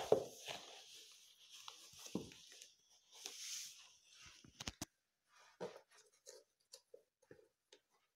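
Black suede high-heeled ankle boots being handled by stockinged feet on a tiled floor. Suede and nylon scuff and rub, with a few dull thumps in the first half, two sharp clicks of a heel on the tile a little past halfway, and then scattered light taps.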